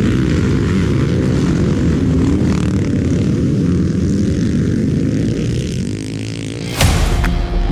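Loud, steady low engine rumble. About seven seconds in, a sharp hit cuts it off and music with held tones begins.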